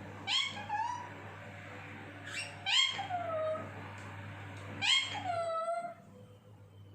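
Pet Alexandrine parakeet giving three calls, each a sharp rising note that falls away in a downward glide, the second and third louder than the first, over a low steady hum.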